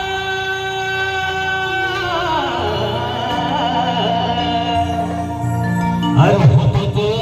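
Band music playing the opening of a song: a long held melody note with vibrato slides downward about two seconds in, over a steady low drone, and a loud low hit comes about six seconds in.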